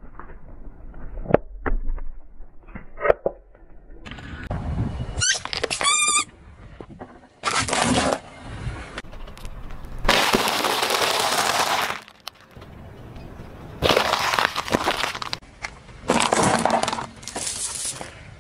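Car tyre rolling over and crushing objects on asphalt. There are a few sharp pops as laundry-detergent pods burst under the tread, then several long stretches of loud crackling and crunching as a bag of dry egg noodles and other items are flattened.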